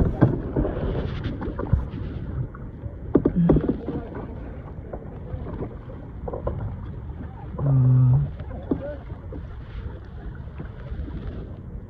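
Water sloshing and splashing around a kayak, with wind on the microphone. About eight seconds in comes a short, low, voice-like sound, the loudest thing heard.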